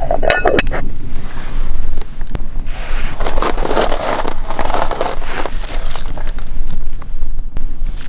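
Metal clinks of a cast-iron pot and lid being set in place, then a wood campfire crackling while glowing embers are scraped and heaped onto the lid with metal tongs.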